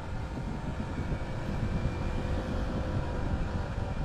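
Sport motorcycle riding at steady speed on a wet road: wind buffeting the microphone over the engine's steady drone.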